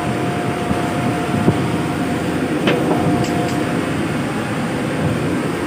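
Steady drone of shipboard machinery, with a thin steady whine running through it and two brief knocks, about a second and a half and two and a half seconds in.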